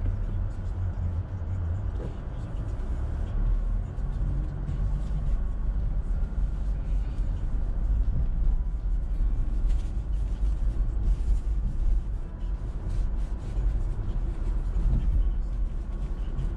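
Car driving along a city street: steady low rumble of engine and road noise.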